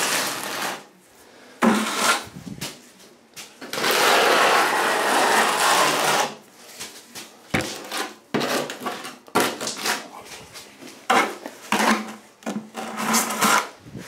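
Trowel scraping and spreading wet thinset mortar on a wall: a long scrape about four seconds in, then a string of short scrapes with a knock near the middle.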